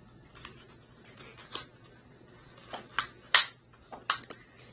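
A Scentsy scent brick and its packaging being handled: a handful of sharp clicks and rustles, loudest about three and a half seconds in.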